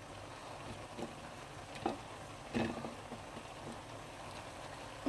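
Faint steady sizzle of a pot of sauce cooking, with a few light knocks and taps as pieces of dried fish are handled and dropped in.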